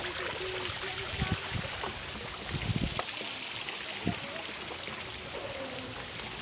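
Steady trickling and splashing of water running over rocks at a pond's edge, with a few dull low thumps.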